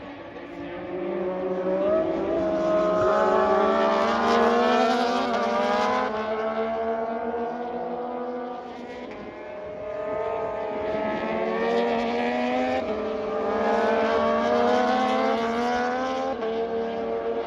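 Several racing motorcycle engines running on track, their overlapping engine notes rising and falling as the bikes pass, loudest twice.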